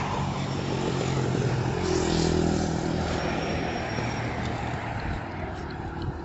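A motor vehicle driving past on the street: its engine note grows louder to a peak about two seconds in, then drops slightly in pitch and fades away, over steady traffic noise.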